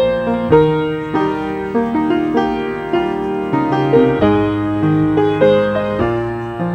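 Slow piano music, with sustained chords and a melody moving to a new note about every half second.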